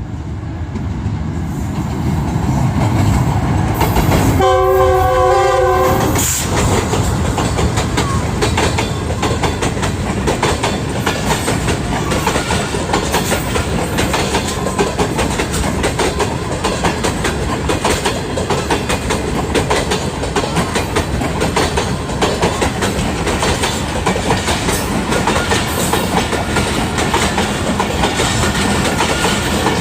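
Karakoram Express passenger train at speed, growing louder over the first few seconds. The locomotive's horn sounds once for about two seconds a few seconds in. After that the wheels run steadily over the rail joints with a continuous clickety-clack.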